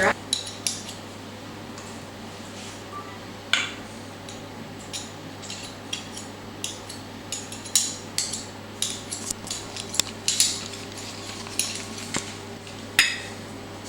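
Cutlery and dishes clinking and knocking at irregular intervals, a couple of dozen sharp clicks with the loudest near the middle and near the end, over a faint steady low hum.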